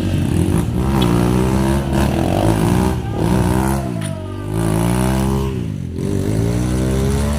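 Trail motorcycle engine revved up and down several times, its pitch rising and falling in repeated pulls.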